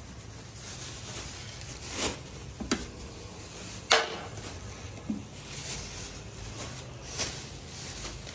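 Handling noise from food being packed: a metal spoon scooping rice in a large aluminium pot and plastic bags being handled. It comes as a few scattered clicks and knocks, the sharpest about four seconds in.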